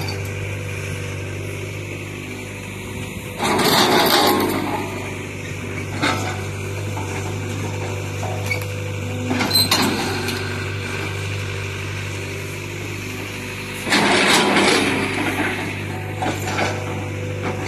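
Demolition of an RV's interior: two loud bursts of breaking and scraping, about three and a half seconds and fourteen seconds in, and a few sharp knocks, over a steady low engine hum.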